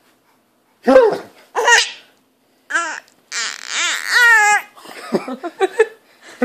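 A baby laughing in several high-pitched bursts, the longest and loudest about three to four and a half seconds in, at a man's silly vocal noises.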